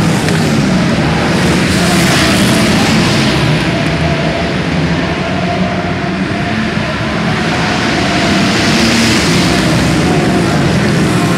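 Several short-track racing motorcycles running hard around an indoor dirt oval. Their engine notes overlap and rise and fall as the bikes pass and go into the turns.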